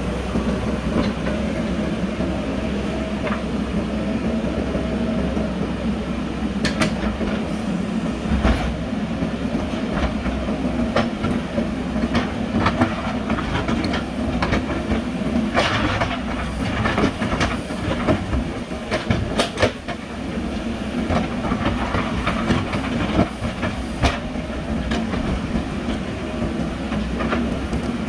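JCB backhoe loader's diesel engine running steadily while digging, with irregular metallic clanks and knocks from the bucket and arm, busiest in the middle of the stretch.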